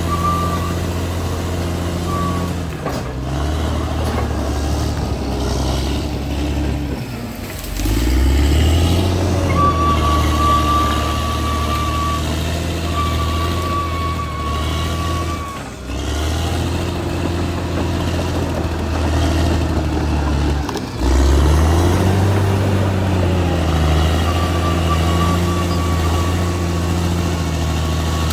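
Caterpillar D6R XL bulldozer's diesel engine running under load, dipping three times and pulling back up in pitch each time. A thin, high steady whine comes and goes over the engine.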